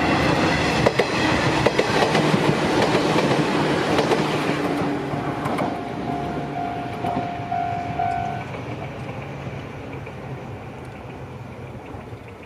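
Izuhakone Railway Sunzu Line electric train passing over a level crossing, its wheels clattering over the rail joints, then fading steadily as it moves away. The crossing's warning alarm keeps sounding in a repeating tone and stops about eight seconds in.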